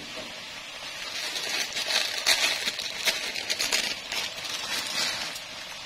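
Thin broth bubbling and crackling at a simmer in a nonstick wok, busiest in the middle.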